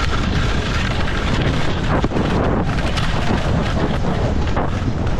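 Skis scraping and chattering over hard, chopped-up snow at speed, under a loud rush of wind on the GoPro's microphone.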